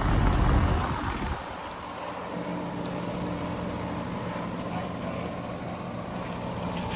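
Outdoor air-conditioning condenser unit running, with wind buffeting the microphone for the first second or so; about two seconds in a steady low electrical hum comes in and holds.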